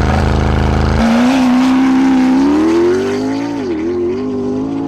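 Sports car engine running hard under acceleration at high revs. Its pitch climbs slowly, dips briefly about three and a half seconds in, then holds steady.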